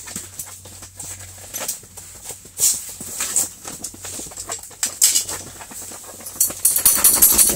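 Scattered rustling and light knocks of people moving about inside an ice-fishing tent, with clothing brushing close by. The rustling gets louder and denser near the end.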